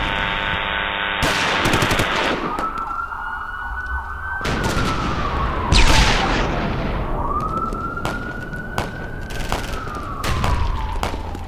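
Police siren wailing slowly, rising and falling twice, over scattered gunshots, the loudest about six seconds in. A steady buzzing tone cuts off about a second in, before the siren starts.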